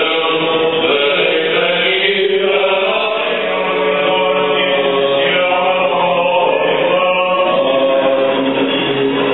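Byzantine chant of the Greek Orthodox funeral service: voices sing long held, slowly moving notes over a steady low drone.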